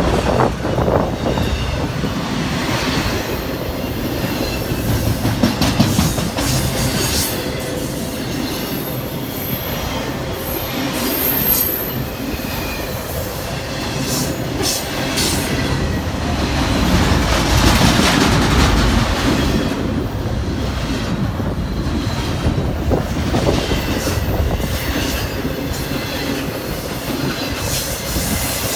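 Intermodal freight train rolling past: a steady rumble of steel wheels on rail with clacking over the rail joints, and a thin, high wheel squeal about ten seconds in.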